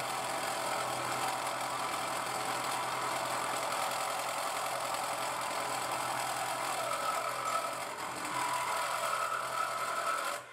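Sieg X2.7 mini mill milling steel bar with an end mill: a steady run of cutting noise over a low motor hum, with a higher tone coming in over the last few seconds.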